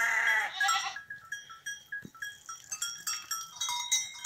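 One wavering bleat from the penned goats and sheep at the start, then the light, irregular clinking of livestock neck bells.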